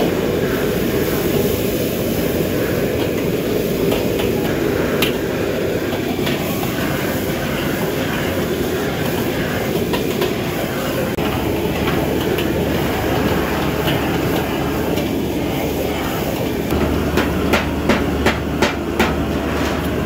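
A commercial gas wok burner running loud and steady under a large wok of frying food, with a metal ladle clanking and scraping against the wok. The clanks come more often in the last few seconds.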